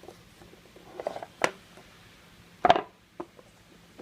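Trading-card pack and cards being handled and opened: a few short crinkles and clicks, the loudest a brief crackle about two-thirds of the way through.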